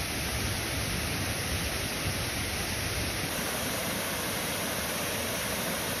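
Steady rush of creek water running over rock ledges and a small cascade.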